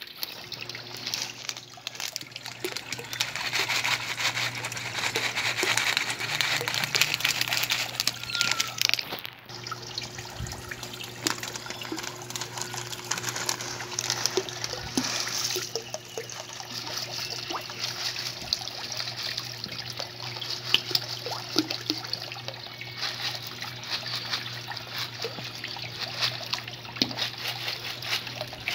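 Water trickling and splashing steadily in a small turtle pond, with a constant low hum underneath.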